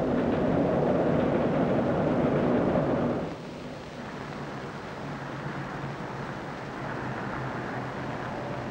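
A train rumbling over a steel railway bridge. About three seconds in it cuts off abruptly to quieter, steady street traffic noise.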